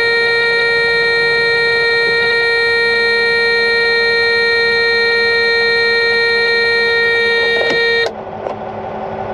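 Steady, loud warning tone from the cab alarm of a Cat 740 articulated dump truck, set off by pressing an emergency-use-only button mistaken for the parking brake; it cuts off suddenly about eight seconds in, leaving the diesel engine idling.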